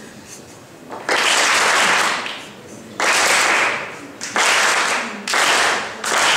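Audience applauding in repeated bursts, each about a second long, starting suddenly and tailing off, about five times.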